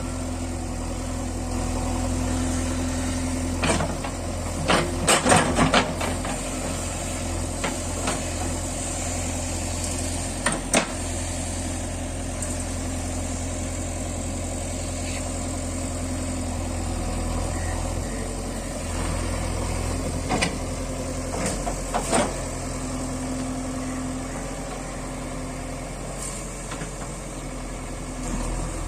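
Backhoe loader's diesel engine running steadily, with a cluster of sharp knocks about five seconds in and a few single knocks later on.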